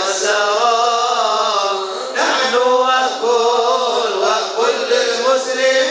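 A man singing an Arabic devotional qasidah unaccompanied into a handheld microphone, in long, ornamented phrases whose pitch winds up and down. The line breaks briefly about two seconds in and starts again on a new phrase.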